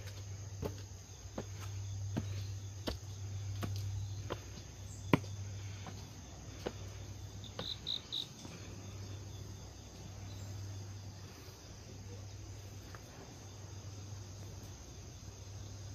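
Footsteps climbing stone steps: sharp footfalls about every 0.7 seconds that stop about halfway through, over steady high-pitched chirping of insects such as crickets. A low steady hum runs underneath.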